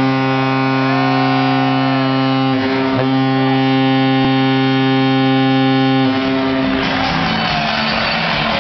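Arena goal horn sounding after a goal is scored: a long, steady, multi-toned blast whose low tone drops out about six seconds in.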